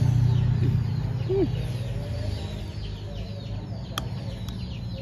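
Chickens clucking and small birds chirping in quick repeated falling notes, with two sharp clicks of a spoon against a china bowl about four seconds in.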